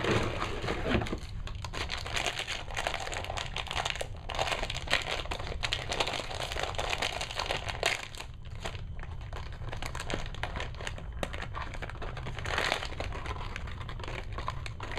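Plastic packaging of a Heroclix figure crinkling and rustling continuously with many small crackles as it is handled and opened by hand.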